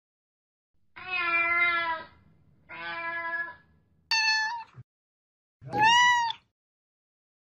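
Cats meowing: four separate meows. The first two are lower and longer; the last two are higher-pitched, and the last rises and falls.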